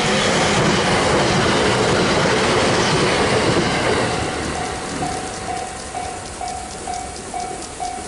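Two-car electric train passing fast over a level crossing: a loud rush of wheels clattering on the rails for about four seconds, then fading as it goes. Through it the crossing's electronic warning bell dings about twice a second, drowned out while the train passes and clear again afterwards.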